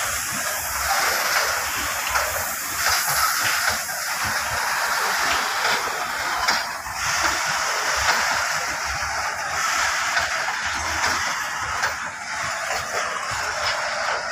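A freight train of loaded open hopper wagons rolling past: a steady hissing noise of steel wheels running on the rails over a low rumble.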